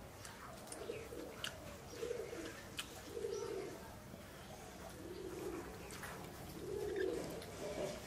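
A dove cooing in short low phrases, repeated every second or two. Light clicks and smacks of people eating rice by hand from steel plates are heard between the coos.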